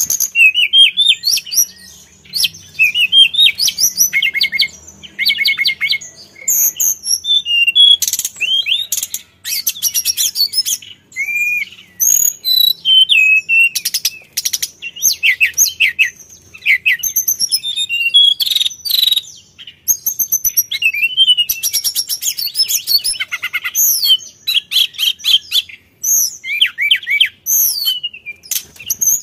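Male hill blue flycatcher singing: a long, varied run of high whistled phrases and rapid trills, broken by brief pauses between phrases.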